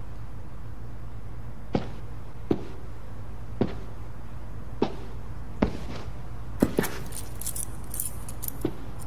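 Slow footsteps on a hard floor, each step a single sharp click, about one a second, over a steady low hum. Around seven seconds in, a short jingle of keys.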